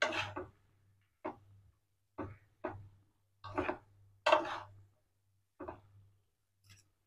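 Metal fork scraping and tapping against a non-stick frying pan while tossing noodles: about eight short, separate scrapes at uneven spacing, roughly a second apart, over a faint low hum.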